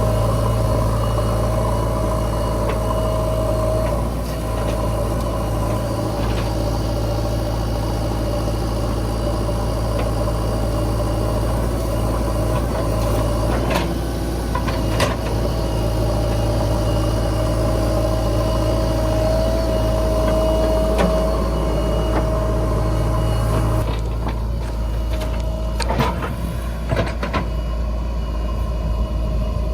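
JCB 3DX backhoe loader's diesel engine running steadily, with a held whine over the engine note and a few short knocks. The sound changes about 24 seconds in, turning duller.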